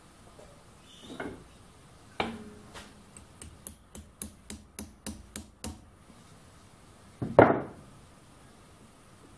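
Hex key and hand tools being worked at a Sherline micro lathe's headstock. A knock and a sharp click come first, then a run of about ten quick ticks at about four a second. A louder clatter comes near the end.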